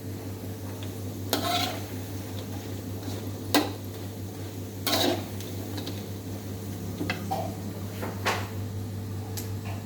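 Kitchenware clattering: dishes, pots and utensils knocked together in about six separate clinks and clunks, over a steady low hum.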